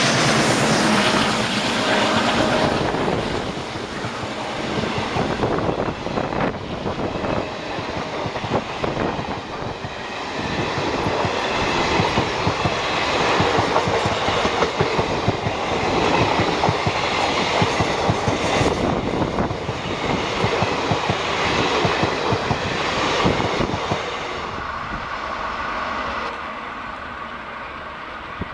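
ALCO WDM-3A diesel locomotive going past close by at the start, then a long passenger train's coaches clattering and rattling over the rail joints, clickety-clack, fading near the end as the train moves away.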